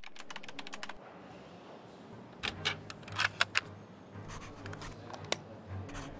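Paint marker writing on paper and a disc label in short separate strokes, after a quick run of small clicks in the first second.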